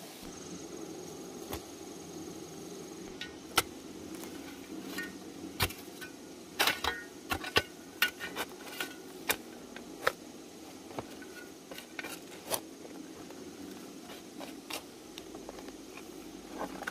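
Irregular knocks and clatter of hard objects being handled, a dozen or so, the loudest about three and a half seconds in and a quick run of them in the middle, over a steady low background hum. A faint high steady whine sounds through the first few seconds and again near the end.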